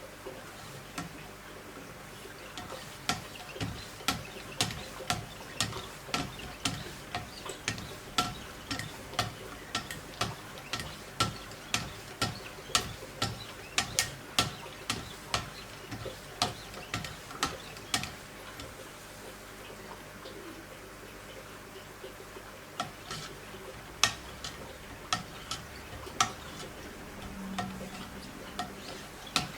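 Wicked Edge guided knife-sharpening system worked by hand: sharp clicks about two a second, slightly uneven, with a pause of a few seconds in the middle.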